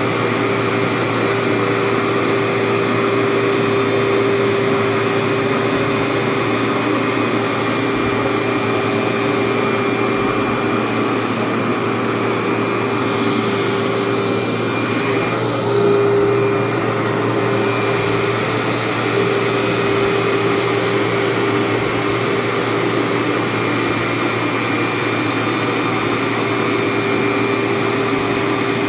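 Workhorse vacuum running steadily as it is pushed over polyester short-shag carpet: a constant motor hum with a whine and rushing air, briefly louder about halfway through.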